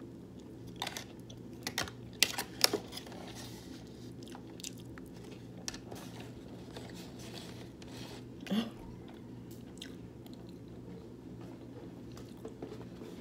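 Close-up chewing of a burrito: wet mouth clicks and smacks, thickest in the first three seconds, with a brief low throaty sound about eight and a half seconds in.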